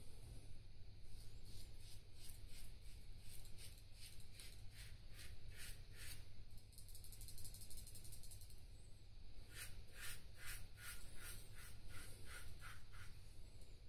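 Feather Popular butterfly safety razor with an Astra blade scraping through lathered stubble in short strokes. It comes in two quick runs of rasps, about two or three a second, with a pause of a few seconds between them.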